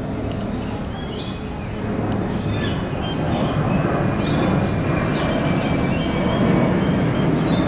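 Koala bellowing: a low, rough, drawn-out rumble that grows louder toward the end. Birds chirp in the background.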